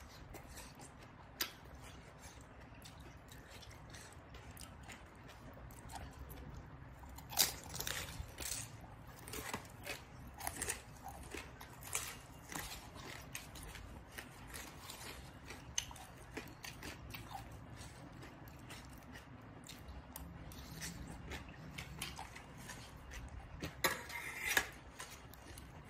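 Close-up eating sounds of papaya salad with raw vegetables: chewing and crunching, with sharp wet clicks and crackles. They are sparse at first, come thick from about seven seconds in, and peak in a louder burst near the end.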